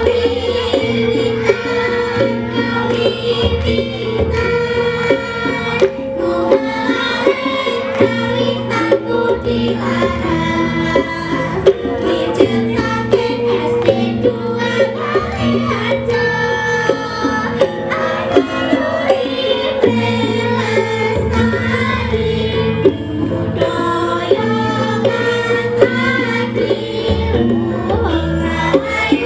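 Javanese gamelan ensemble (karawitan) playing a steady piece, bronze metallophones and gongs ringing under a kendang hand drum's strokes, with voices singing along.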